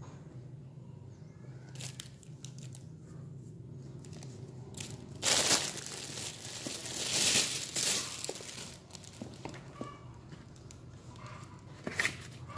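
Shoe packaging crinkling and rustling as it is handled, in two loud spells about five and seven seconds in, with scattered light clicks and handling noise around them.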